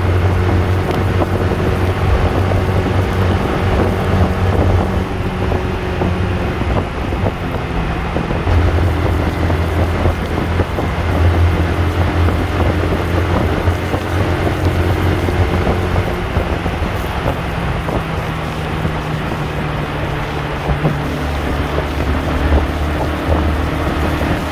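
Yamaha R15 V2's 150 cc single-cylinder four-stroke engine running steadily at highway speed, its note shifting a few times as the throttle changes, with wind buffeting the microphone.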